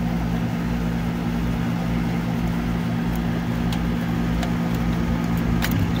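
Package heat pump's compressor and fan running with a steady hum. A few faint clicks near the end as a screwdriver works at the breakers.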